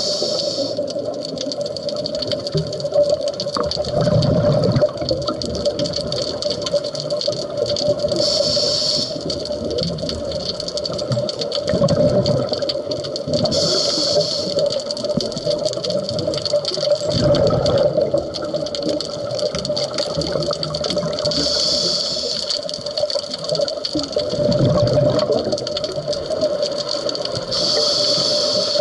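Scuba diver breathing underwater through a regulator: a hiss on each inhale and a low bubbling rumble of exhaled bubbles, about one breath every seven seconds. A steady hum runs underneath.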